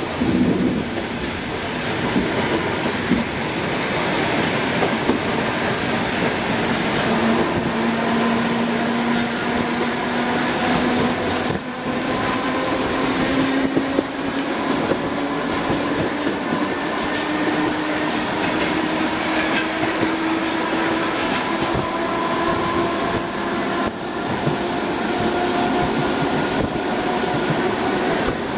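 ER2R electric multiple unit under way, heard inside the carriage: a steady rumble of wheels on rail. From about seven seconds in, a motor whine rises slowly in pitch as the train gathers speed.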